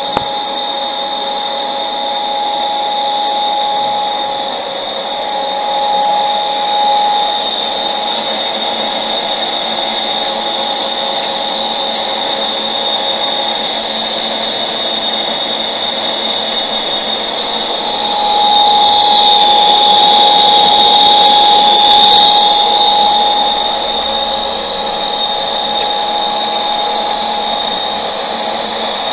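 Deckel FP3 toolroom milling machine running with no cut: a steady mechanical whir from its motor and gearing, with constant whining tones over it. It grows louder for a few seconds about two-thirds through, then settles back.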